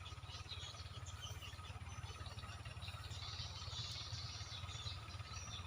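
Outdoor ambience: small birds chirping in quick, scattered bursts, busiest in the middle, over a steady low rumble.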